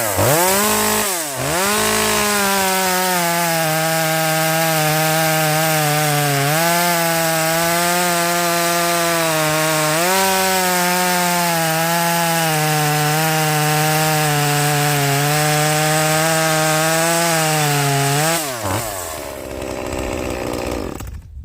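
Echo 2511P chainsaw's small two-stroke engine, stock and unmodified, blipped up and down once, then held at high revs under load, likely cutting wood, for about 16 s, the revs sagging and picking back up slightly a couple of times. It drops back to idle near the end.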